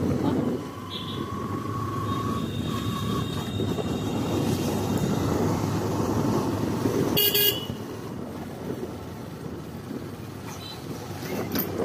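Motor vehicle running on the move with steady engine and road noise, and a short horn toot about seven seconds in, after which the noise eases a little.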